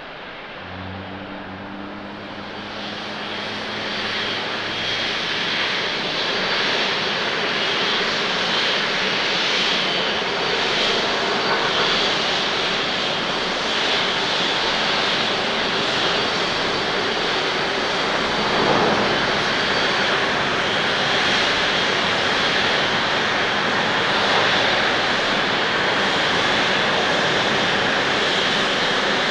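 Boeing 767 jet engines at takeoff thrust: the noise builds over the first few seconds, then holds steady and loud with a high fan whine as the airliner rolls down the runway and climbs out.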